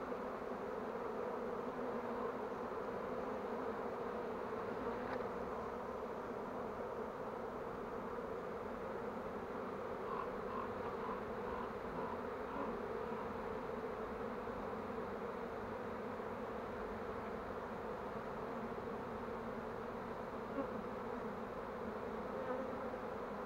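Steady hum of a swarm of honeybees crowding on and inside a mesh swarm box as the swarm is being collected.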